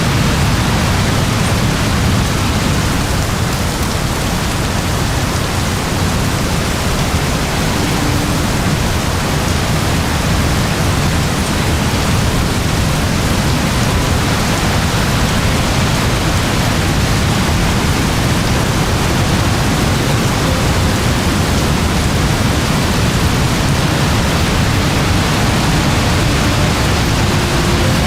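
Very heavy rain pouring steadily, a dense, even hiss with a deep low rumble under it.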